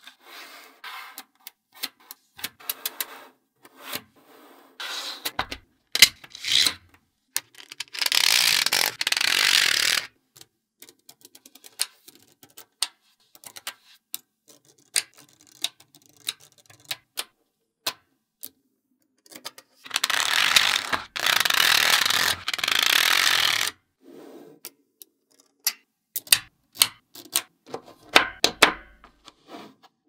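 Small neodymium magnet balls clicking sharply as rows snap onto a sheet of balls, in scattered single and quick clicks. Twice, for two to four seconds at a time, a dense rattling, scraping rush as many balls shift against one another and slide on the tabletop.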